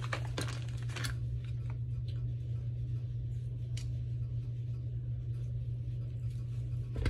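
A few soft clicks and taps of a knife cutting Velveeta cheese into cubes and of the cubes being handled, over a steady low hum.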